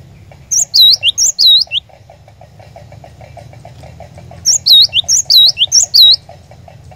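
Cinereous tit (glatik batu) singing two loud phrases of high, clear whistled notes that dip and rise, the second phrase coming about four seconds after the first. A faint, rapid ticking runs underneath.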